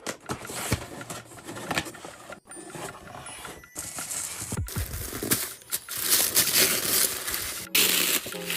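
Packaging being handled and opened: a run of sharp clicks, rustling and crinkling, with louder crinkling from about six seconds in, broken by several abrupt cuts.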